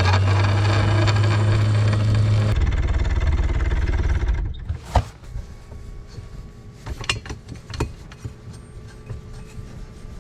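A yacht's engine running steadily, then dropping to a lower throb a couple of seconds in and dying away about four seconds in. Then a few sharp knocks and clicks over quieter background noise.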